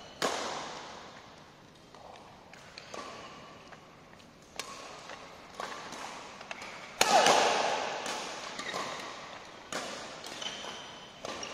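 Badminton rally: a string of sharp racket-on-shuttlecock hits every second or two, ringing in a large hall, the loudest about seven seconds in.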